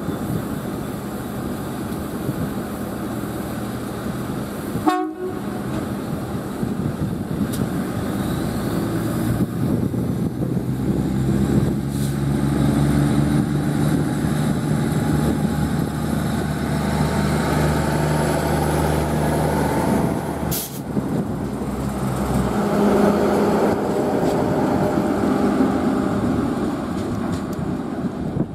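Irish Rail 2600 Class diesel multiple unit's Cummins NTA-855 diesel engines running under power as the train pulls away, a deep steady engine drone that grows louder from about ten seconds in and cuts off abruptly a little over twenty seconds in.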